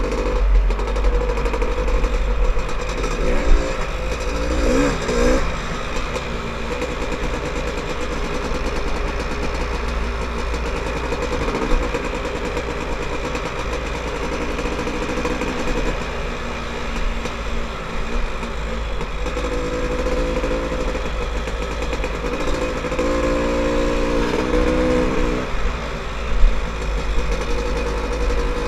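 Dirt bike engine running as the bike rides along a dirt trail, its pitch rising and falling with the throttle, over a steady low wind rumble on the microphone.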